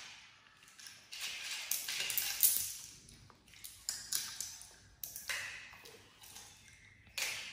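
Irregular small clicks, taps and crackles of sunflower seeds: a monkey picking seeds out of a plastic tray and cracking the shells, with seeds rattling against the plastic, loudest about two seconds in.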